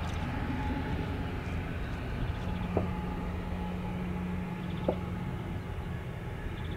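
Gulfstream G650ER's twin Rolls-Royce BR725 turbofans at idle as the jet taxis slowly, a steady low rumble. Two short sharp clicks come about 3 and 5 seconds in.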